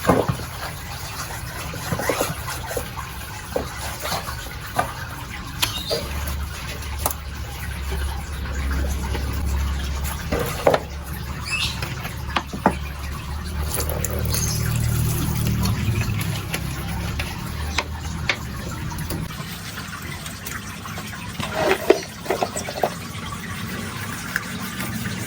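Water running and splashing while metal bike parts are washed, with scattered clinks and knocks.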